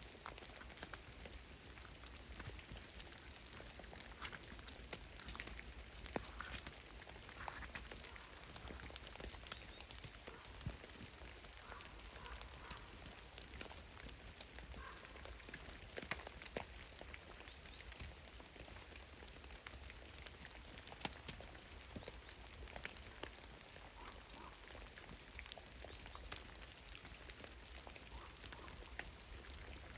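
Meltwater drops falling from heavy, melting snow in forest trees: an irregular, fairly faint patter of ticks, with now and then a louder single drop. A few faint short calls sound in the background.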